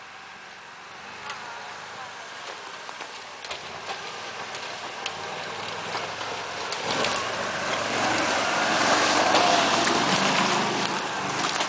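Argo amphibious all-terrain vehicle's engine running as it drives closer over dry leaves. It grows steadily louder to a peak as it passes close by about nine seconds in, with scattered short clicks and snaps throughout.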